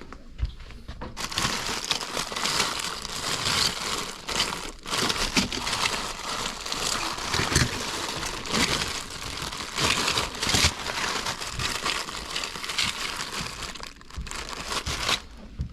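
Continuous crinkling and rustling with many small crackles, as of crinkly material being handled or rubbed close to the microphone. It starts about a second in and eases off near the end.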